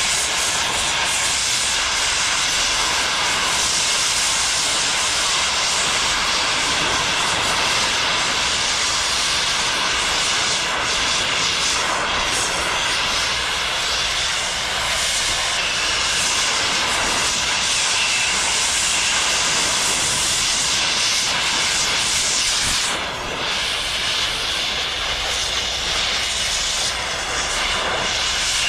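Oxy-fuel cutting torch cutting through thick steel, a steady loud hiss of the oxygen jet blowing through the molten cut, with one brief dip about three quarters of the way through.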